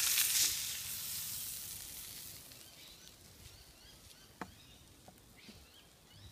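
Tilapia fillet sizzling in butter and garlic on a hotplate over a wood fire, loudest at first and fading away over the next two seconds or so. A single light knock about four seconds in.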